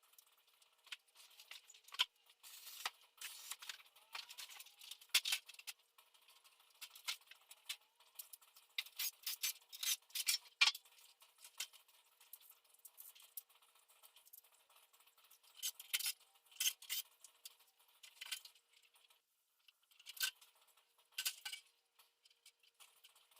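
Irregular light clicks, taps and rattles of small hard parts being handled, some in quick clusters around the middle and again near the end.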